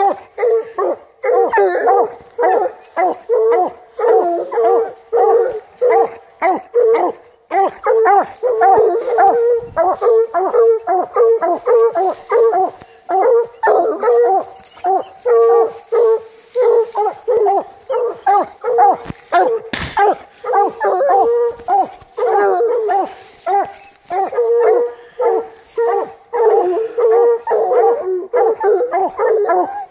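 Coonhounds barking hard and without letup, a rapid run of short barks several a second: hounds baying treed at the foot of a tree.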